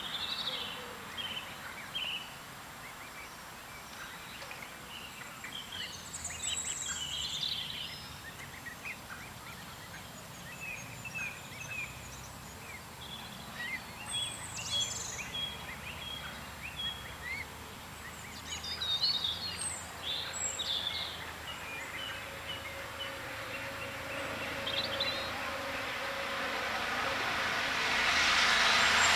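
Short, high bird chirps and peeps scattered throughout, over a faint low hum, with a rush of noise swelling near the end.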